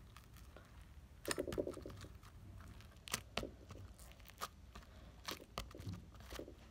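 Fingers poking and pressing a dry glitter slime, giving faint, scattered crackles and small clicks.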